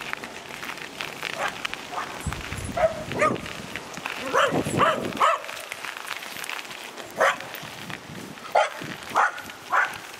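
A dog barking: a series of short, sharp barks, several in quick succession in the middle and a few more spaced out towards the end.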